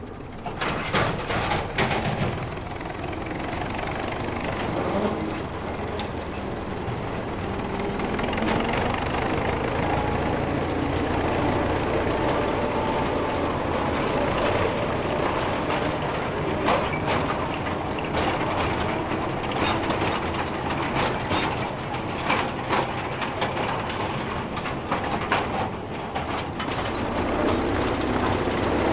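Rebuilt Motor Rail 'Tin Turtle' two-foot-gauge locomotive running along the track: steady engine noise, with irregular clicks and clanks from the wheels and running gear over the rails.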